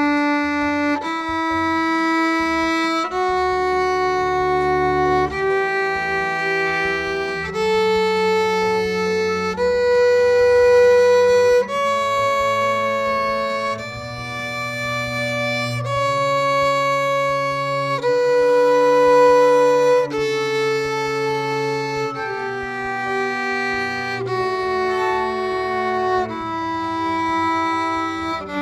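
Two violins bow a D major scale in slow half notes, each note about two seconds long, stepping up the scale and back down. A few seconds in, a cello and a double bass join on the same scale two notes behind, so the parts overlap as a round.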